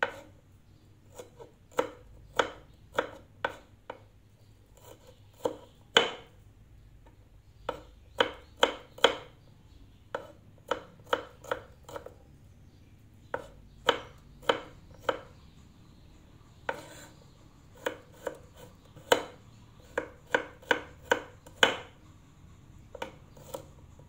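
Kitchen knife slicing shallots on a wooden cutting board: sharp single knocks of the blade striking the board, about two a second in short runs with pauses between.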